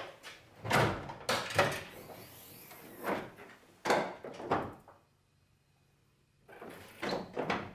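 Car hood being unlatched and raised: a string of sharp clicks and knocks from the latch and hood, a short pause, then a few more knocks near the end.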